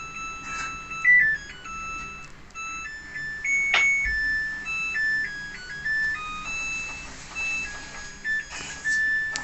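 Samsung top-loading washing machine playing its electronic end-of-cycle melody, a tune of short pure beeping notes that signals the cycle has finished. A single sharp click sounds a little under four seconds in.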